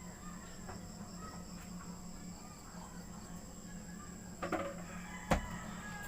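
Rural background with a steady high-pitched insect drone and faint short chicken clucks and bird calls. A single sharp knock comes about five seconds in.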